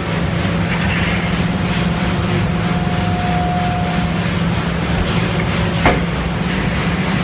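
Balemaster E560 auto-tie baler running, a steady mechanical hum, with a short whine in the middle and a single sharp knock near six seconds in.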